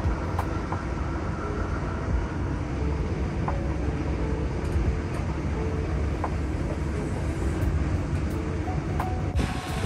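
Steady low rumble of a vehicle on the move, with a brighter hiss coming in suddenly near the end.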